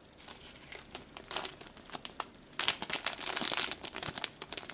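Small clear plastic bag of replacement O-rings crinkling as it is handled in the fingers, in irregular crackles, with a denser, louder run of crinkling for about a second just past the middle.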